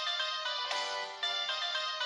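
Instrumental break in a Greek pop song: a high, bright melody line moving quickly from note to note, with little bass.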